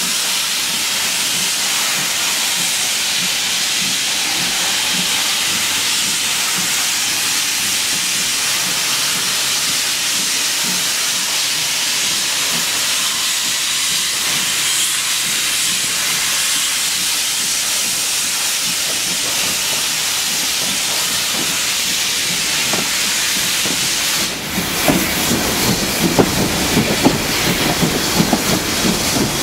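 Steady loud hiss of steam from GWR 5600 class 0-6-2T tank engine 5643 as it moves off with its train, heard from the coach right behind it. About 24 seconds in the hiss eases and an uneven low rumble with wind buffeting on the microphone takes over as the train gathers speed.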